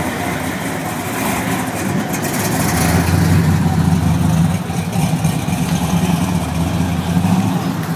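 Supercharged V8 of a first-generation Chevrolet Camaro with a hood-mounted blower, running low and lumpy as the car drives slowly past. It grows louder about two and a half seconds in as the car comes close, then carries on as it pulls away.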